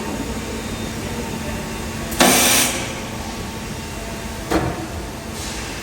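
Steady factory-floor machinery noise, with a sudden loud hiss of air about two seconds in lasting about half a second, and a shorter sharp knock-like burst near the end.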